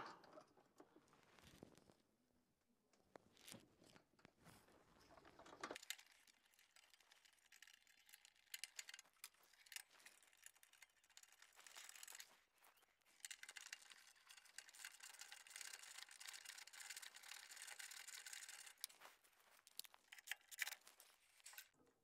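Faint, scattered clicks and rustling of hands working inside a gas furnace's burner compartment, fitting the hot surface igniter and burner parts back into place.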